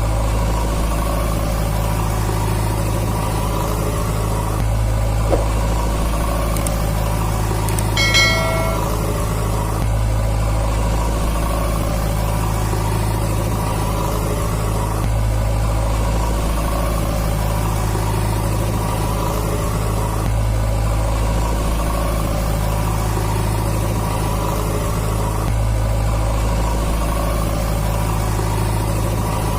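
Vehicle engine idling steadily in a repeating loop, with a short pitched beep about eight seconds in.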